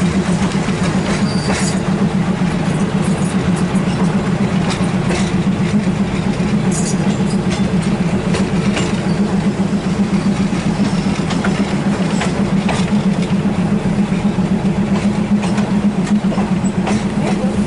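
Hitachi diesel multiple unit running steadily, heard from on board: a constant low engine drone with a fast flutter. Scattered sharp clicks come from the wheels passing over rail joints and points.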